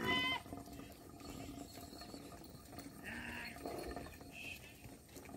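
Calls from a passing mixed herd of water buffalo, cattle and goats: a short high-pitched call right at the start, then a few fainter short calls.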